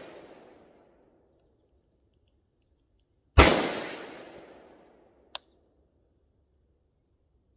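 A single rifle shot from an FN SCAR 17S in 7.62×51mm about three seconds in, its report dying away over about two seconds. A short sharp click follows about two seconds after it. At the very start the tail of the previous shot is still fading out.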